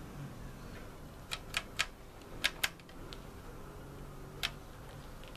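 Several sharp clicks from the MFJ-945E's rotary inductance switch being turned through its detent positions, in two quick groups and one more near the end.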